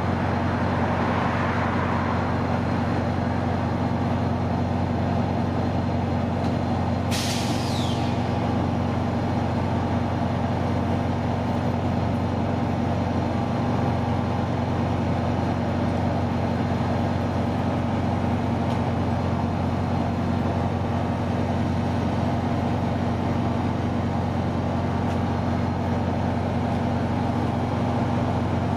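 A large diesel engine idling steadily with a low, even hum. About seven seconds in, a short sharp hiss of released air cuts in, with a whistle falling in pitch inside it.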